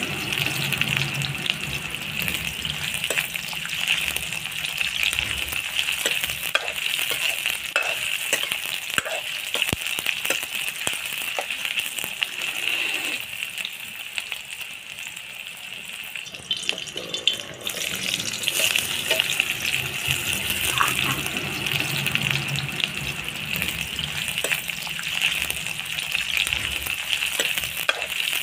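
Sliced onions sizzling steadily in hot oil in a karahi, with a spatula scraping and clicking against the pan now and then as they are stirred. The sizzling eases for a few seconds just past the middle.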